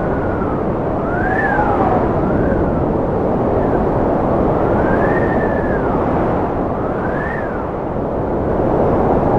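Strong wind blowing steadily, with a thin whistle that rises and falls in pitch every second or two.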